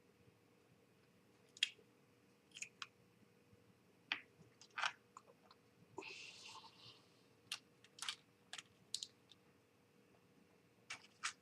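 Light, irregular clicks and taps of small scale-model kit parts and tools being handled on a work surface, with a short rustle about six seconds in.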